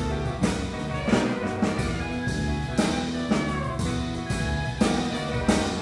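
Live contemporary ensemble music: held pitched notes from the ensemble, with drum-kit hits punctuating them irregularly.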